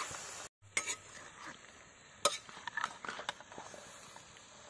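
Steel ladle stirring chunks of raw pork in a metal wok, with scattered clinks and scrapes of the ladle against the pan. A soft sizzle at the start cuts out briefly about half a second in.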